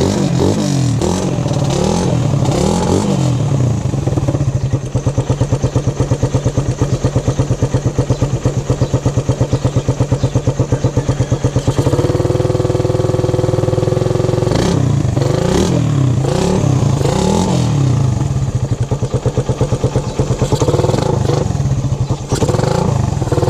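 Suzuki Raider 150 single-cylinder four-stroke engine running through a newly fitted big-elbow exhaust and canister for a sound test. It is blipped up and down at first, then settles into a steady pulsing idle, holds a higher rev about twelve seconds in, and is blipped again through the last part.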